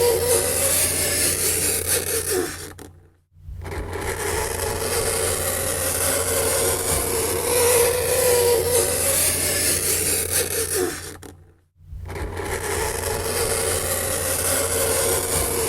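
Fingernails scraping across a chalkboard in a continuous screech with a wavering squeal. It fades out and starts again twice, about 3 seconds and 12 seconds in.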